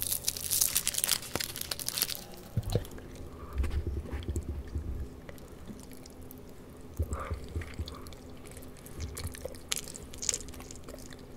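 Foil wrapper of a chocolate truffle crinkling as it is unwrapped close to the microphone for about the first two seconds, then close-up chewing with scattered small mouth clicks.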